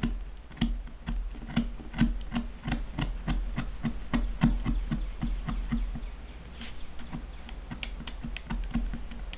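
Pen-style craft knife taking very small cuts through a leather wallet corner to round it over, guided by a small metal anvil: a quick, uneven series of small clicks, about three a second.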